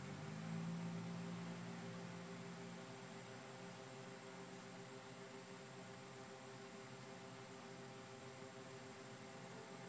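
Faint steady hum and hiss. A low drone swells about half a second in and fades away over the next few seconds.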